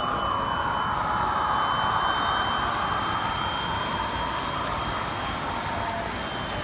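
Model InterCity 125 (HST) train running along the layout: a steady motor hum and wheel-on-rail noise that swells and fades, over the general background hubbub of an exhibition hall.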